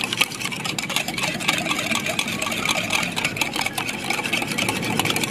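Wire balloon whisk beating eggs in a ceramic bowl: a fast, continuous clatter of the wires against the bowl.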